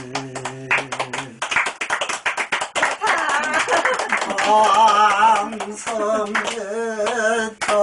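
People clapping along in a steady rhythm while a person sings a song with long, wavering held notes.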